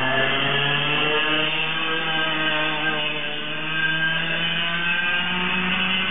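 Yamaha KT100S single-cylinder two-stroke kart engine running on a go-kart. Its pitch rises about half a second in, dips briefly around three and a half seconds, and climbs again near the end.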